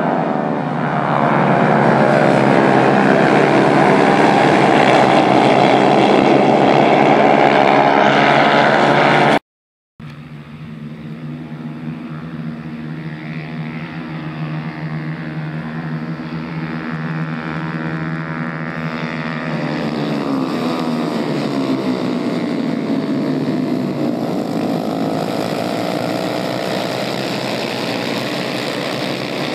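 A pack of 110 cc racing motorcycles running at high revs, their engine notes rising and falling in pitch as they pass. The sound cuts out abruptly for about half a second just under 10 seconds in, then builds again as the pack approaches.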